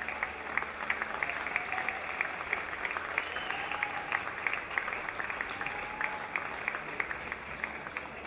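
Audience applauding, with a steady beat of rhythmic claps, two to three a second, running through it.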